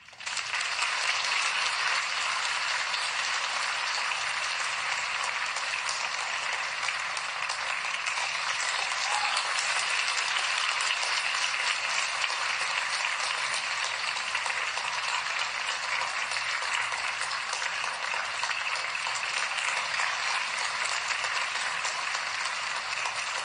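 Theatre audience applauding, breaking out all at once and keeping up steadily.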